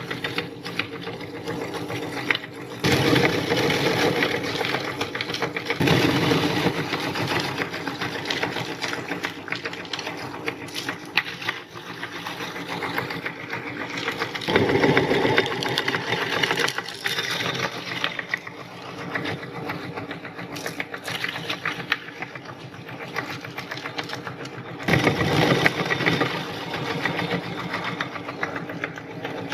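Electric meat grinder running steadily while grinding candy, its motor hum swelling louder and harsher in four stretches as it takes on the load.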